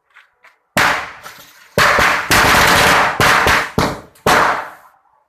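Diwali firecrackers going off: one sharp bang about a second in that dies away, then a rapid run of loud bangs for about three seconds.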